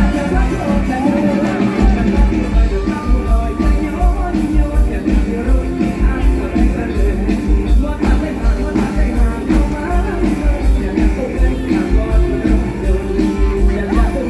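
Mor lam band music: a singing voice over a steady, driving kick-drum beat and amplified band.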